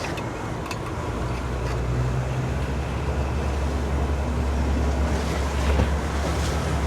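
Motorboat running underway, its engine a steady low drone that grows louder about a second in, with the rush of water and wind noise on the microphone.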